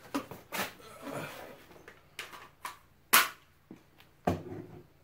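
A few short, sharp knocks or cracks. The loudest comes about three seconds in, and another just after four seconds trails off briefly.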